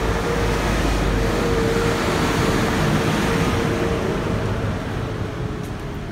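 Street traffic noise dominated by a red double-decker bus running right beside the pavement: a dense rumble with a steady hum over it, easing off in the last couple of seconds.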